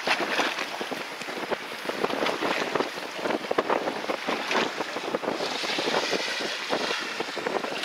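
Sea water splashing and lapping against the side of a small fishing boat, with wind buffeting the microphone: a steady rushing noise broken by many quick splashy crackles.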